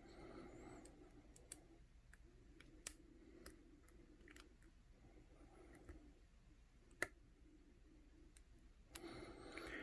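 Faint, sparse clicks of a lock pick and tension wrench working the pins of a brass Master Lock No. 160 padlock during a single-pin-picking attempt, a few separate ticks a second or more apart.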